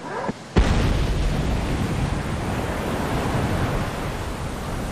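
A dam bursting open with a sudden blast about half a second in, followed by a steady rush of floodwater pouring through.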